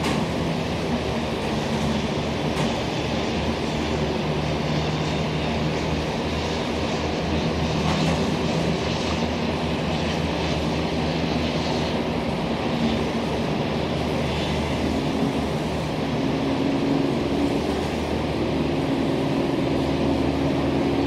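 A steady mechanical drone running throughout, with a few low humming tones that drift slowly up and down in pitch.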